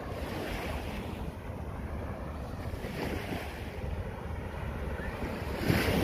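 Sea waves washing onto the beach in swells, the loudest near the end, with wind rumbling on the microphone.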